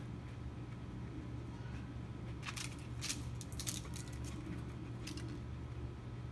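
Dog moving about on a leash while searching on a wooden deck: a quick run of short, sharp clicks and clinks in the middle, over a steady low hum.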